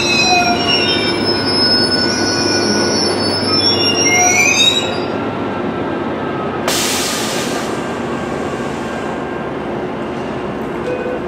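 Sounder commuter train's bilevel coaches slowing to a stop, the wheels and brakes squealing in several high tones over a steady rail rumble. The squeal dies away about halfway in. Soon after, a loud hiss of compressed air lasts about a second, then the stopped train keeps up a steady low rumble.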